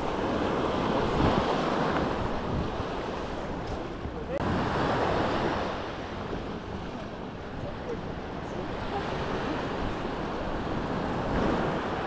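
Sea waves breaking and washing up the beach in repeated swells, with wind buffeting the microphone. The louder washes come about a second in, about four and a half seconds in, and again near the end.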